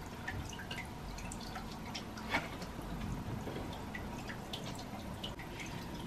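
Faint dripping water: a string of small irregular drip ticks over a low steady hum, with one slightly louder click a little over two seconds in.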